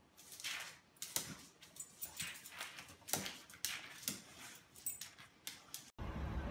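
Golden retriever puppy reacting to a lemon slice with a string of short, sharp noises, about two a second. Near the end this cuts off abruptly into steady car and traffic noise.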